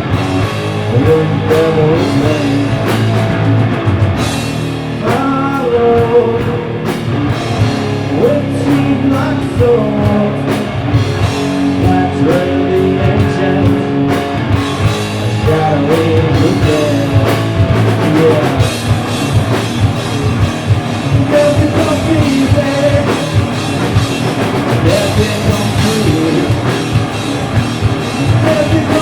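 Stoner rock band playing live: electric guitar and drum kit, with singing.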